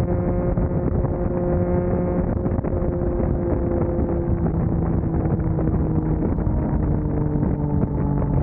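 Motorcycle engine running at highway speed under heavy wind rush on the microphone, its note sinking slowly as the bike eases off.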